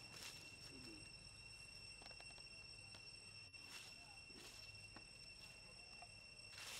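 Faint outdoor ambience of insects chirring on steady high tones, with a few brief soft rustles.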